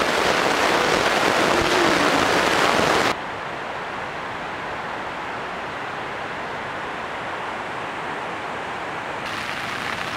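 Heavy rain from a thunderstorm beating on a tent, a dense steady hiss. About three seconds in it drops abruptly to a softer, duller hiss.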